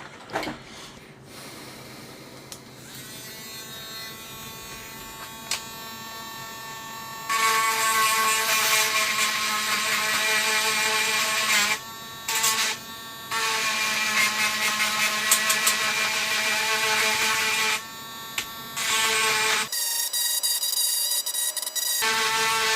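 A small handheld electric tool motor whining steadily, run in several bursts with short stops, as it cleans corrosion off the controller's circuit board. The pitch shifts higher for a couple of seconds near the end.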